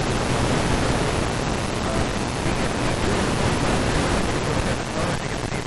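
Steady loud hiss from an FM receiver (an SDRplay RSP-DX tuned to the ISS 2-metre downlink on 145.800 MHz) with its squelch open and no usable voice signal coming through.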